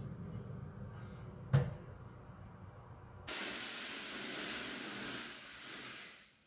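A baking tray pushed into an oven over a low hum, with a single clunk about one and a half seconds in. A steady hiss follows after a cut, a little past three seconds in.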